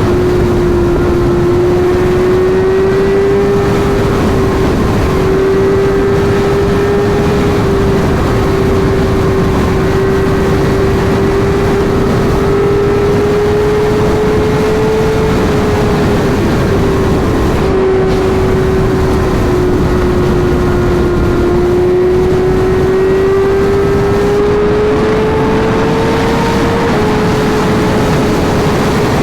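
Sport bike engine running at a high, steady speed on the highway, its note rising and falling slightly with the throttle, under heavy wind rush.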